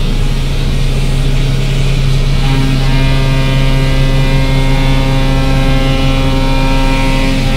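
Doosan DNM 500 CNC machining centre milling a plastic block (acetal or something similar), its spindle at 8000 rpm: a steady machine hum with several steady tones above it. A set of higher tones comes back in about two and a half seconds in.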